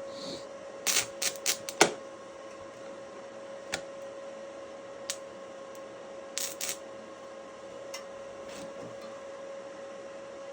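Stick welding electrode being struck on the steel: short crackling taps and sputters in a cluster about a second in and again around six and a half seconds, with single ticks between, as the arc fails to catch and hold. A steady hum runs underneath.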